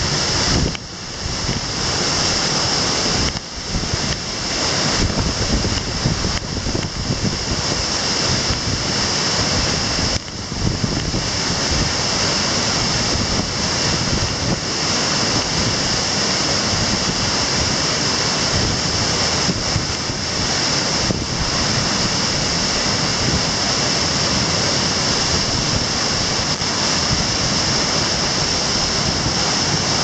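Waterfall plunging into a rocky pool: a steady, loud rush of falling water.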